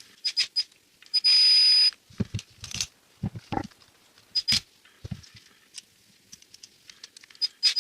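A small electric screwdriver whirring in short bursts and one longer run of just under a second, about a second in, driving the screws back into an angle grinder's gearbox housing. Between the bursts come clicks and low knocks of metal parts and tools being handled.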